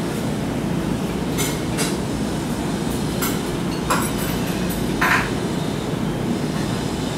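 Steady low rumble of restaurant room noise, with about five short clinks of tableware scattered through it.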